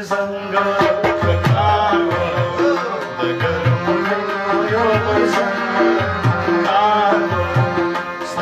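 Pashto folk song: a male voice singing over a harmonium's held reed chords and the plucked notes of a rabab, with drum strokes keeping a steady rhythmic beat.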